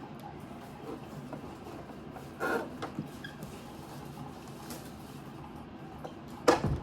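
Handling noises from a new sewing machine and its parts: a brief rustle or scrape about two and a half seconds in, a small click, then a sharp knock and clicks near the end, like a plastic cover or compartment being snapped into place.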